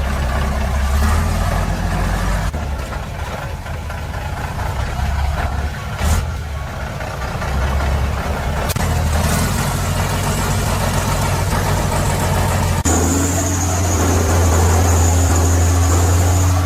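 Heavy truck engine running, its low drone rising and easing as it works. About thirteen seconds in it turns louder and steadier, with a thin high whine.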